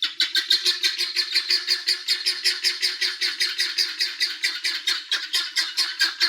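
A flock of guinea fowl calling loudly in a fast, even, harsh chatter of about six calls a second.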